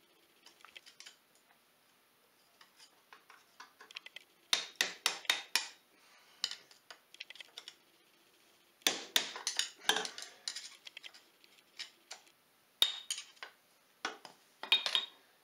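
Metal tools and parts clinking and scraping as a screwdriver works at an ATV's rear brake assembly: clusters of sharp clicks in four short bursts, with quiet gaps between.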